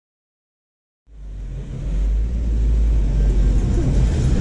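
Silent for about the first second, then street noise comes in and holds: a steady low rumble of road traffic with a hiss above it.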